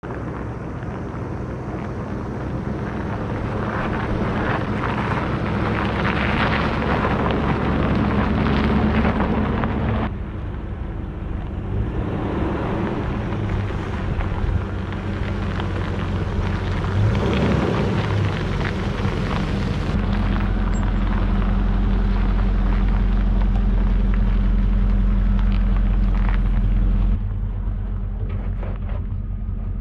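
Land Rover Discovery 2 driving slowly over gravel: its engine running steadily with tyres crunching on the stones. The sound changes abruptly a few times, with a heavier low engine rumble for several seconds in the second half as the truck comes close.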